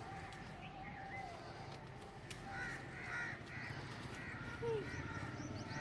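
Birds calling, with crow-like caws a few times over a steady outdoor background; the loudest is a short falling call near the end.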